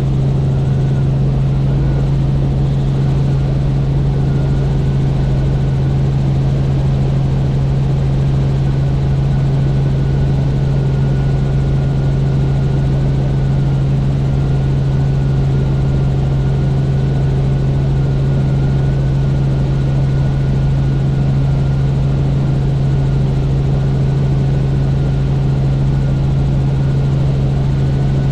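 Helicopter in steady cruising flight: the rotor and engine make a loud, unchanging drone, with a faint wavering whine above it.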